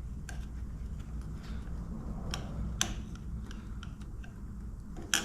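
Scattered light clicks and taps from small parts being handled while a turn signal connection is worked on, about half a dozen at uneven spacing with the sharpest near the end, over a steady low hum.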